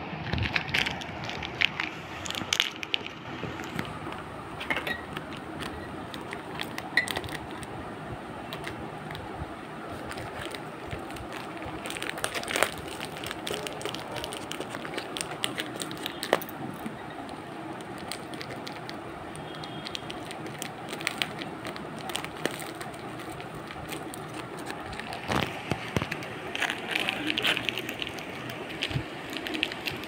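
Plastic biscuit wrapper crinkling and rustling as a pet parrot bites and tugs at it with its beak, with irregular sharp crackles and clicks throughout.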